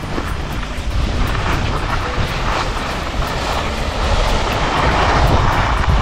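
Wind rumbling on a camera microphone while skiing downhill, with the hiss of skis sliding over snow. The hiss swells about five seconds in.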